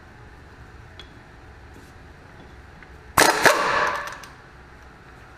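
Impact wrench run briefly on an axle flange nut, a loud burst of about a second starting about three seconds in, with two sharp hits at its start.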